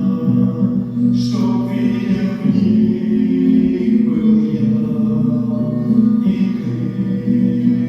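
Music: voices singing a song together in a choir-like way, with long held notes.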